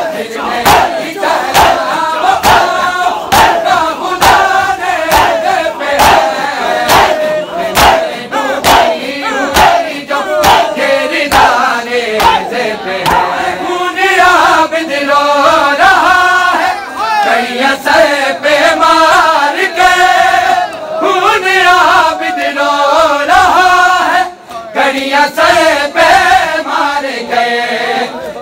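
A crowd of male mourners doing matam: sharp, rhythmic chest-beating slaps about twice a second under loud chanting voices. Around halfway the slaps thin out and a group of men singing a noha lament comes to the fore.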